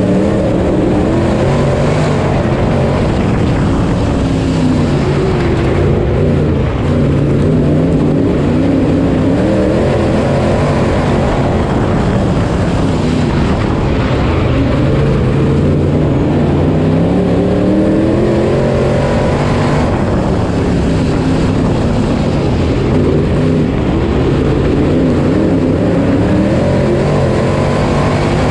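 IMCA Modified dirt-track race car's V8 engine at racing speed, heard from inside the cockpit. The engine pitch rises and falls repeatedly as the throttle opens on the straights and lifts for the corners.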